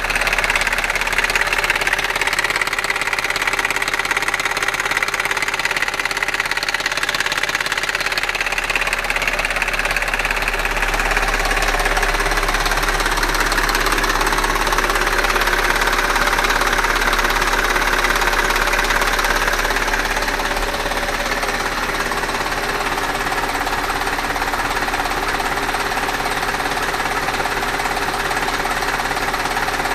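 Audi A6 3.2 FSI V6 petrol engine running with a fast, continuous clattering and knocking, a diesel-like nailing. The clatter grows a little louder in the middle, then settles.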